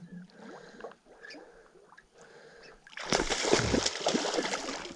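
A hooked brown trout thrashing at the surface, splashing water for about two seconds, starting about three seconds in.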